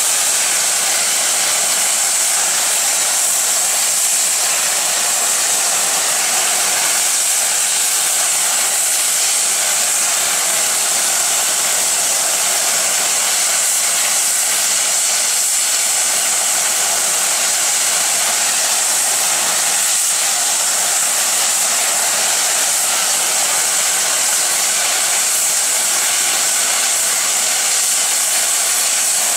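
Boiler safety valves of BR(S) rebuilt Bulleid Light Pacific steam locomotive 34046 Braunton blowing off: a loud, steady, high-pitched hiss of escaping steam. It means the boiler is at full working pressure.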